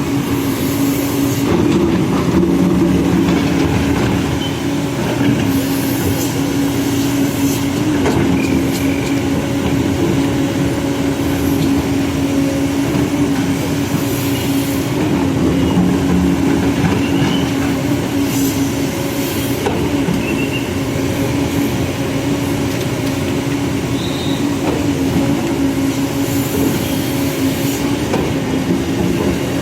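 Backhoe loader's diesel engine running steadily at constant speed, a continuous hum with short hissing bursts now and then.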